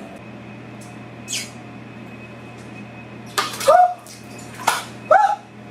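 A low steady hum, with a brief hiss about a second in and two short vocal exclamations with bending pitch near the end.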